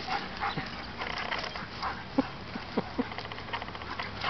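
Rapid footsteps rustling through grass, with a dog giving four short whines about two to three seconds in.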